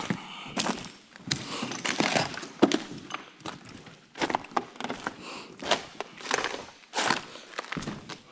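Footsteps crunching and scuffing over scattered debris and trash on a floor, with uneven knocks and clatters as things underfoot are kicked or shifted.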